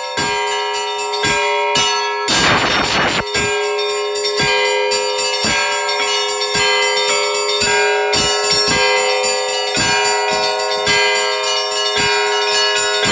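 Russian Orthodox church bells rung together in a zvon: quick strikes on the small bells over the steady ringing of the larger ones, with one heavy strike of a big bell about two and a half seconds in.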